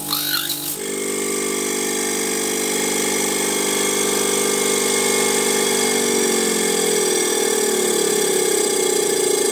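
DWM Copeland refrigeration compressor running on a variable frequency drive, a steady machine drone with many tones. About a second in the sound changes, and over the last few seconds its pitch slowly falls while it grows slightly louder.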